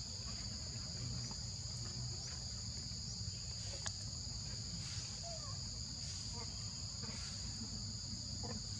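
A steady, high-pitched chorus of insects trilling without a break, over a low rumble. A few faint short chirps and a single sharp tick about four seconds in.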